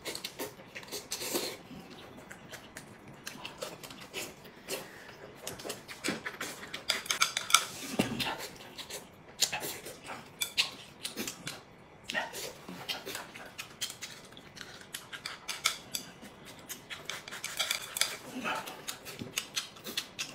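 Chopsticks clicking and scraping against a ceramic rice bowl in quick, irregular strokes as rice is shoveled into the mouth. Mixed with chewing and other eating sounds.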